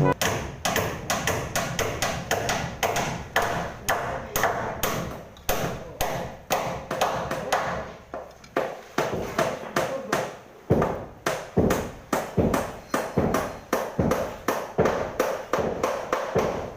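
Hammer striking over and over, about three sharp blows a second, each with a short ring.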